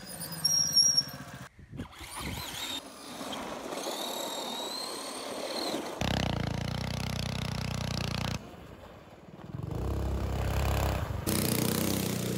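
A run of short clips of small motor vehicles, each cut off abruptly after a few seconds: a mini bike's engine running, a radio-controlled monster truck whose motor gives a rising whine, and a go-kart engine running.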